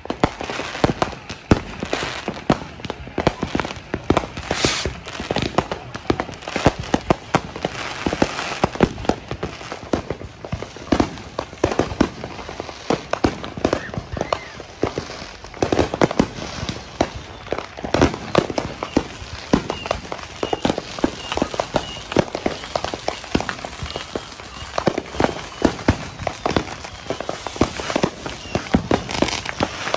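Fireworks and firecrackers going off all around, a steady stream of overlapping bangs and crackles with no let-up.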